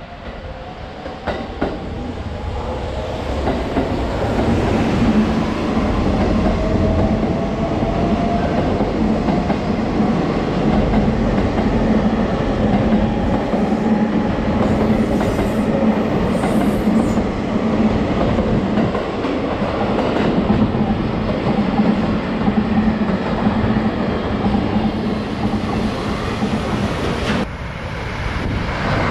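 JR limited express electric train gathering speed past the platform, its motor whine rising in pitch over the first few seconds, then a steady loud rumble of wheels on rail with a low hum. Near the end the sound drops suddenly to a quieter rumble.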